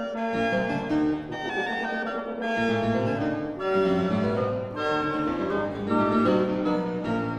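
Fortepiano with a wind quartet of oboe, clarinet, horn and bassoon playing Classical-era chamber music at a lively allegro pace, the fortepiano in quick running figures under the sustained wind lines.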